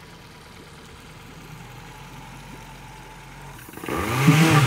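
Mitsubishi S6S six-cylinder diesel inboard engine of a river tug boat idling steadily, then revving up loudly with a rushing surge about three and a half seconds in.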